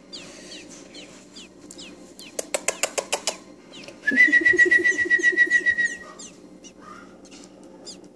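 Nestling American robins' begging calls: short high chirps sliding downward again and again, and about four seconds in a loud, rapidly pulsing high peep lasting nearly two seconds. A quick run of sharp clicks comes a little before it.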